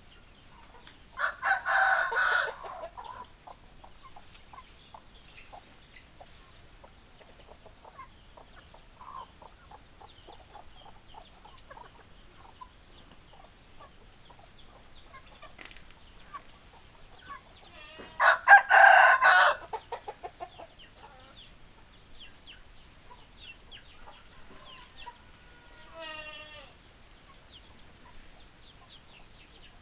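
Rooster crowing twice, each loud crow lasting about two seconds, once near the start and once a little past halfway, with hens clucking softly in between.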